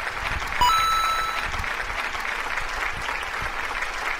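Heavy rain pouring down steadily onto a tiled courtyard. About half a second in, a short electronic tone sounds briefly over it.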